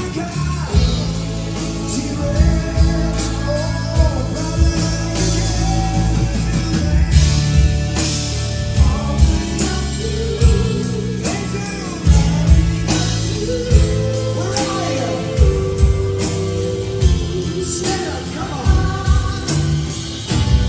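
Live rock band playing with a lead vocal, bass and drums, recorded from the audience.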